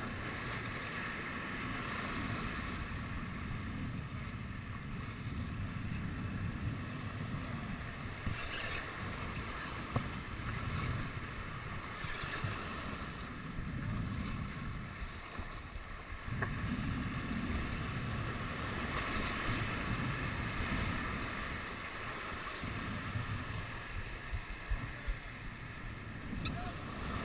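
Sea waves washing and breaking against rocks right below, with wind buffeting the microphone; the low rumble of the surf swells and fades every few seconds.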